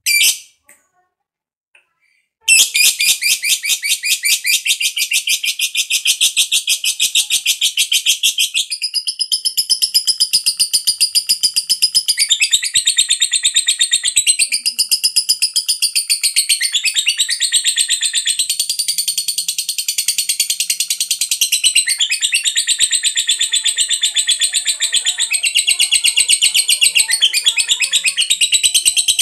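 A lovebird's long ngekek, the prized chattering song of a fighter lovebird. After one short squeak there is a brief pause, and about two and a half seconds in a very rapid, high-pitched chattering trill starts and carries on without a break.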